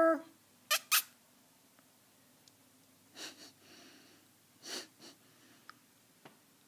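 Short, sharp puffs of breath like snorts or nasal exhales: two quick loud ones just under a second in, then three softer ones a few seconds later, with a faint rustle in between and two light clicks near the end.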